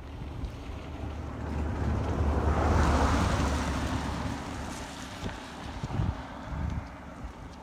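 Wind buffeting the microphone, a low rumble with a gust that swells to its loudest a couple of seconds in and then eases off.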